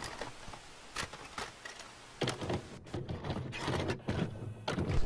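Hiss with irregular clicks and clunks, as of a VHS tape deck loading and starting to play. The clunks grow heavier about two seconds in.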